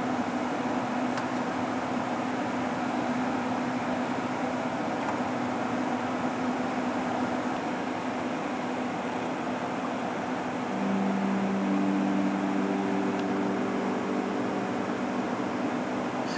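Steady mechanical hum with a hiss over it. About eleven seconds in, a deeper steady tone joins it and the sound gets slightly louder.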